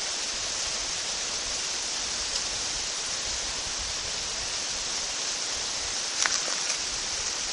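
Steady, even hiss with no clear pitch or rhythm, and a few faint clicks about six seconds in.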